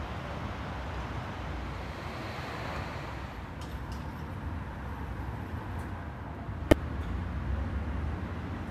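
Road traffic: a steady low rumble and hiss of cars passing, with one sharp click about two-thirds of the way through.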